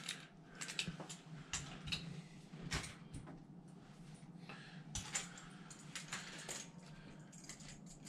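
Faint, scattered clicks and clinks of metal doorknob parts being handled and picked up.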